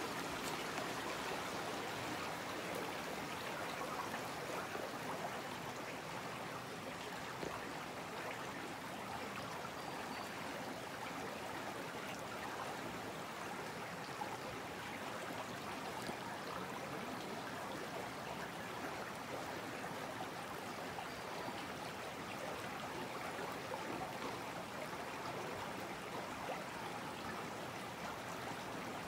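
Shallow mountain creek babbling over stones and gravel: a steady, unbroken rush of running water.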